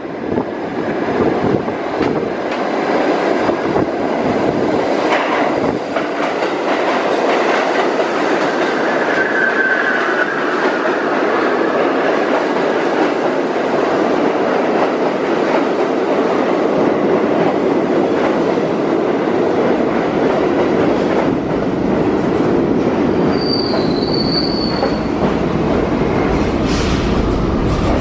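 Kawasaki R68A subway train pulling into an underground station, a loud, steady rumble of steel wheels on rail with clicking over rail joints. Two brief squeals cut through as it slows: a mid-pitched one about a third of the way in and a high-pitched one near the end.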